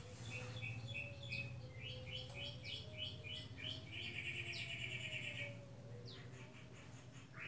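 A songbird calling: a run of short chirps repeating about three times a second, then a fast trill about four seconds in. A steady low hum runs beneath.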